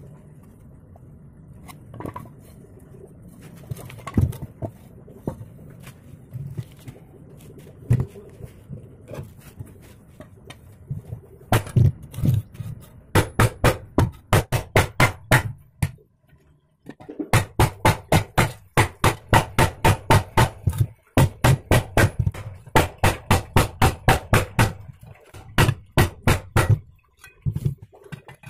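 Scattered knocks, then rapid, evenly spaced sharp strokes on metal, about five a second, in runs of several seconds with short pauses, as a steel chopper blade is worked by hand.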